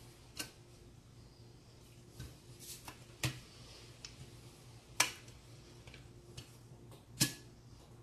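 Sharp, irregular clicks and knocks as a Magpul MOE polymer handguard is handled and pressed onto an AR-15 barrel assembly, about eight in all, the loudest about 3, 5 and 7 seconds in. A faint steady hum lies underneath.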